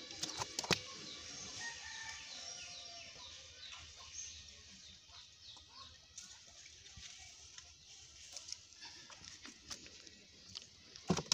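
Birds calling in the background: a quick run of short chirps that fades out after about six seconds, with a few sharp clicks in the first second.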